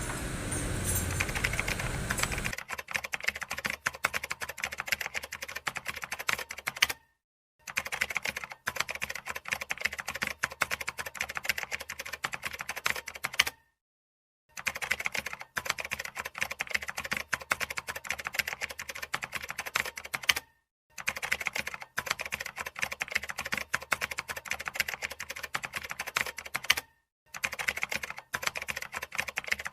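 Rapid keyboard typing clicks in several stretches, each cut off abruptly into silence.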